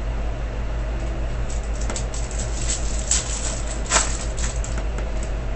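A foil trading-card pack wrapper being crinkled and torn open by hand: a run of crackles, sharpest about three and then four seconds in, over a steady low hum.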